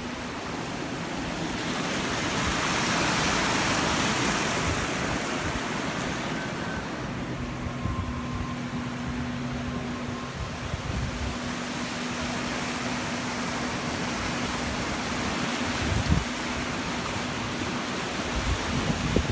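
Swollen floodwater rushing and churning past a concrete culvert, a steady rush of noise that swells a couple of seconds in. A few brief bumps near the end.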